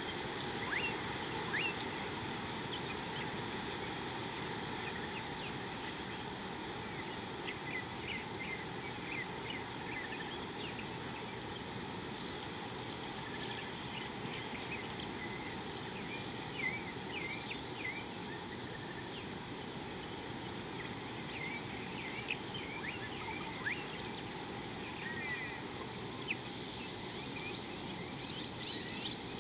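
Outdoor ambience at a savanna watering hole: many short bird chirps and calls scattered throughout, over a steady background hiss.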